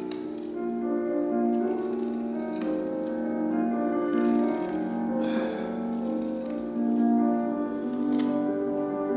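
Piano music of held notes and chords, the notes changing every half second or so.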